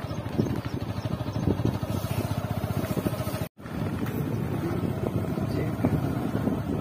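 Small vehicle engine running steadily while moving, with a fast, even firing beat. The sound cuts out for an instant about halfway through.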